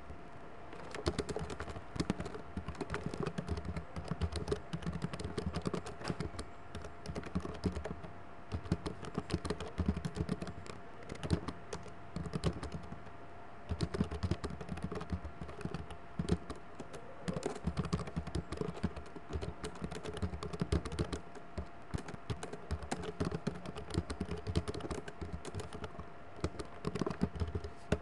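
Typing on a computer keyboard, rapid keystroke clicks in runs broken by short pauses, over a faint steady hum.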